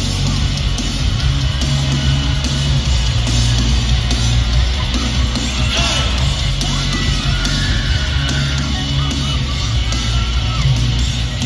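Live pop-punk rock band playing through an arena's hanging PA speakers, with heavy bass and electric guitars, heard from high in the stands.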